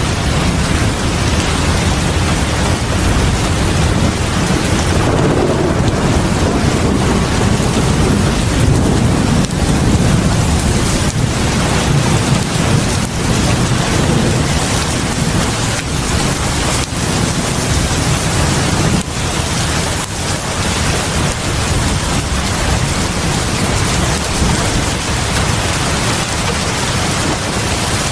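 Heavy rain falling on a house porch: a dense, steady hiss with a strong low rumble underneath.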